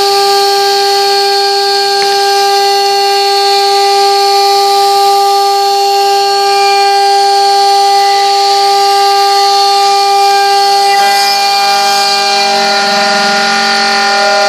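CNC router spindle running with a steady high-pitched whine. A few more tones join about eleven seconds in.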